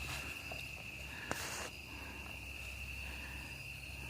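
Crickets chirring in a steady, unbroken high-pitched chorus. A brief sharp noise cuts in about a second and a half in.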